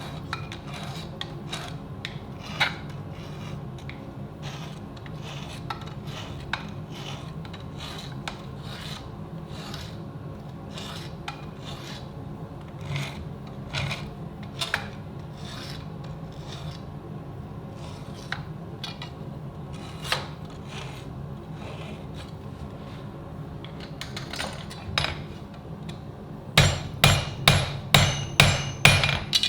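Steel being worked with hand tools: scraping strokes and scattered light metal clicks over a steady low hum. About three seconds before the end, a hammer starts striking steel on the anvil at about two to three ringing blows a second.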